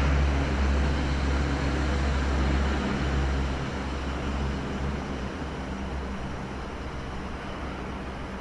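Koleje Śląskie 27WE (Pesa Elf 2) electric multiple unit running in toward the platform, slowing. It gives a steady low rumble and rolling noise that slowly gets quieter.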